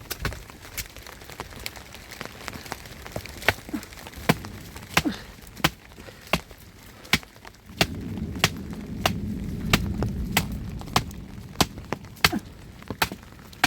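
Wood being broken up by hand: a run of sharp snaps and cracks, about one or two a second. A low rumble joins in between about 8 and 12 seconds in.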